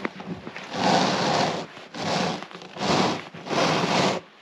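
Footsteps crunching in packed snow: four slow, even steps, each a long crunch.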